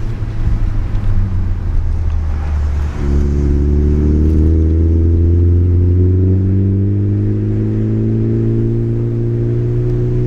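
2017 Ford Focus ST's turbocharged 2.0-litre four-cylinder through a CNT Racing cat-back exhaust, heard from inside the cabin. After a gear change about three seconds in, the engine note climbs steadily as the car pulls through the next gear.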